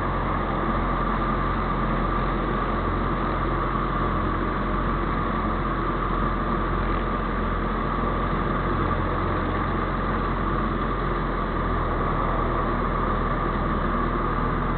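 Ultralight aircraft's engine and propeller running steadily in level flight, heard from inside the cockpit as a constant drone with no change in power.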